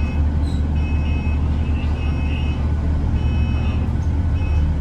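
Bus running, heard from inside: a steady low engine and road rumble with a high metallic squeal that comes in short spells about once a second. The squeal is the awful metallic noise the bus is making.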